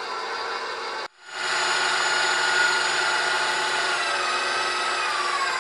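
KitchenAid Professional HD stand mixer running with its whisk attachment, whipping heavy cream into a thick horseradish sauce. The motor whine breaks off for a moment about a second in and comes back louder, then slides slightly lower in pitch near the end.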